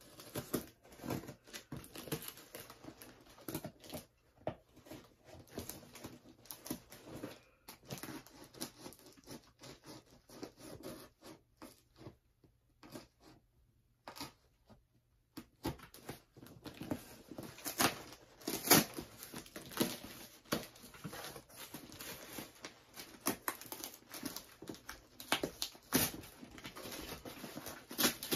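Cardboard box being cut and torn open by hand: irregular scraping, tearing and crinkling of the packaging, with a pause of a few seconds near the middle and busier, louder handling after it.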